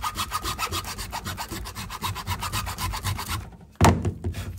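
A metal file rasping back and forth across the copper windings of an electric motor's stator in quick, even strokes: a scratch test to check that the coils are copper. The filing stops a little over three seconds in, followed by a single loud knock.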